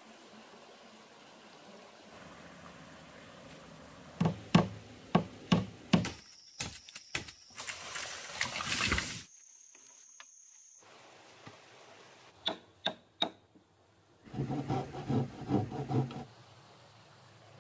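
A cut-together series of work sounds over a faint running stream. First come several sharp knocks, then a brief rush of noise, then three more knocks. Near the end a handsaw cuts through a wooden board in quick, rhythmic strokes.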